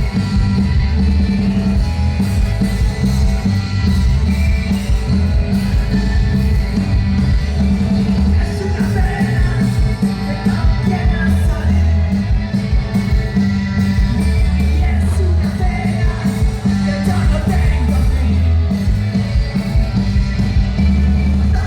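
Rock band playing loud, with heavy bass and singing.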